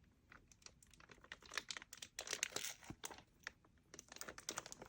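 Faint handling of a mechanical keyboard in its packaging: scattered light clicks and taps with short bursts of plastic rustling.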